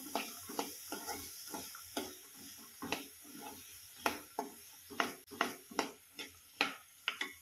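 A spoon stirring green peas and masala in a non-stick kadhai: irregular scrapes and taps against the pan, getting sharper and more frequent in the second half.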